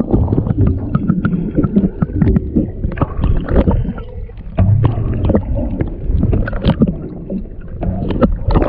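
Water sloshing and gurgling around a boat's hull, heard muffled, with frequent irregular knocks and clicks.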